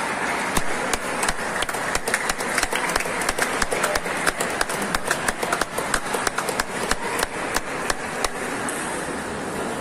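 Table tennis balls clicking sharply off bats and table tops during rallies, several clicks a second, over the steady background noise of a busy sports hall; the clicking stops about eight seconds in.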